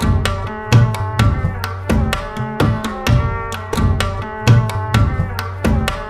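Background music with a steady drum beat over sustained pitched notes.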